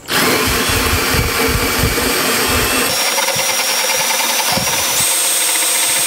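Cordless drill spinning a 2¼-inch hole saw as its teeth cut into a 3/4-inch-thick wooden board, a steady grinding whine. About halfway the low rumble drops away, and near the end a high whine steps up in pitch.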